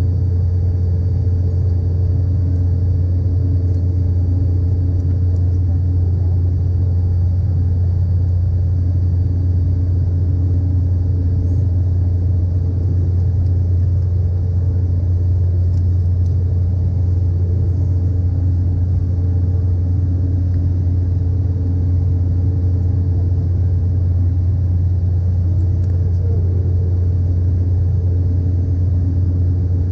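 Steady low cabin rumble of an Embraer E195 climbing out, heard beside its GE CF34-10E turbofan engine, the engine noise and rushing airflow merged into one even drone. A faint high whine fades out about a third of the way in.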